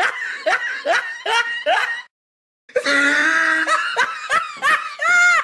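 Hearty human laughter in quick pulses, about two or three a second. It breaks off into a brief silence about two seconds in, then resumes and ends on a longer held note.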